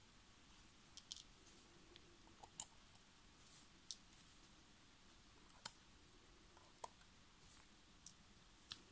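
Faint, sharp clicks of steel watchmaker's tweezers touching the metal case and movement of an automatic wristwatch, coming singly and in pairs at irregular intervals, the loudest a little past halfway through.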